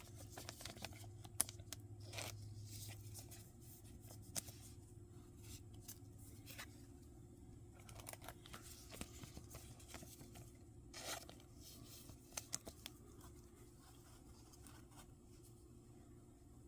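Faint tearing and crinkling of a foil Pokémon booster pack wrapper being opened, with scattered small rustles and clicks.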